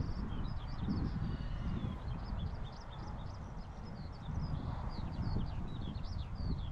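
Small birds chirping and twittering continuously over a low, uneven rumble.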